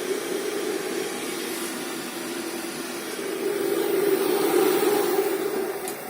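Vents OV 2E 200 motor-cooling fan running steadily, a continuous whooshing hum that grows a little louder about halfway through.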